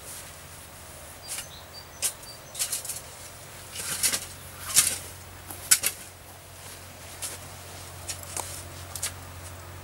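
A spade cutting into turf and soil: a series of short, sharp strikes at irregular intervals about a second apart, loudest around the middle.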